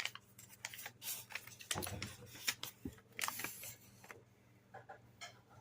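A small slip of paper being unfolded and handled, with irregular crinkling and light clicks that die down over the last second or two.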